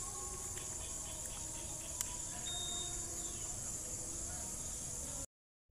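Steady high-pitched insect chorus with a low rumble underneath, a single click about two seconds in and a brief high chirp just after; the sound cuts off suddenly near the end.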